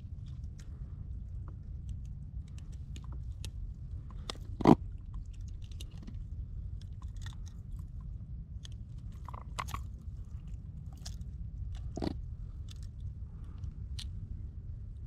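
Scattered small clicks and knocks of gear being handled aboard a fishing kayak, over a steady low rumble. One louder knock comes about four and a half seconds in and another near twelve seconds.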